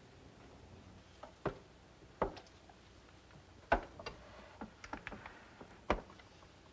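A series of sharp clicks and knocks, about eight, irregularly spaced, the first about a second and a half in, over a quiet room.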